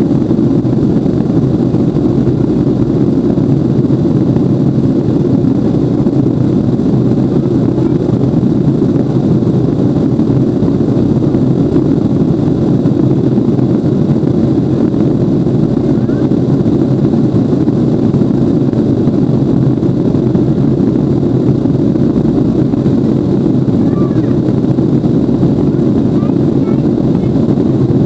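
Steady cabin noise of a Lockheed L-1011 TriStar airliner in flight, heard from inside the cabin: an even, unbroken rumble of its engines and the airflow over the fuselage.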